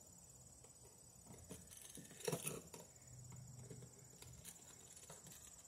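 Faint clicks and scrapes of a screwdriver driving a screw into a weatherproof outlet cover, the sharpest click about two seconds in. A steady high insect drone runs behind it.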